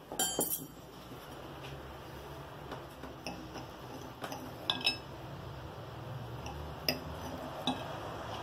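Metal fork and knife picked up with a short clatter, then a few sharp clinks and taps of the cutlery against a ceramic plate as a wedge of potato omelette is cut.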